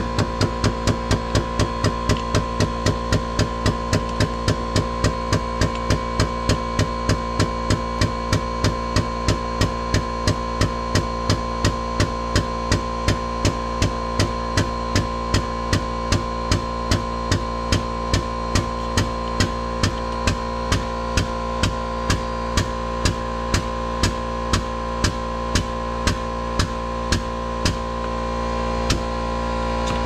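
Air-powered hydraulic crimping tool's pump stroking in a steady, rapid pulse, about two to three strokes a second, slowing a little as pressure builds and the dies crimp a lug onto a battery cable. A steady hum runs underneath.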